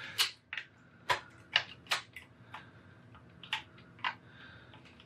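Sharp plastic clicks and taps at irregular intervals as fingers work a cable connector loose inside an opened original Xbox, about seven or eight in a few seconds.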